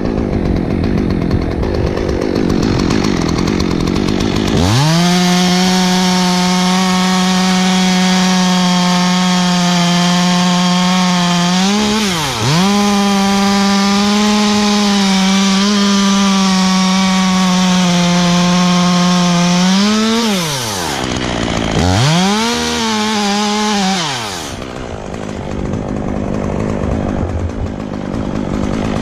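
Gas chainsaw cutting hackberry wood. It idles, is throttled up to full speed about five seconds in and held there for about fifteen seconds with one brief dip, then drops off. It revs once more for a couple of seconds and settles back to idle near the end.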